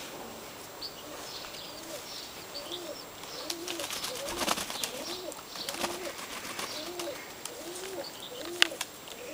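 Turkish tumbler pigeons cooing: a short, low, rising-and-falling coo repeated about every two-thirds of a second. It is mixed with splashing and wing flutters from pigeons bathing in a shallow water tray, which grow busier from a few seconds in.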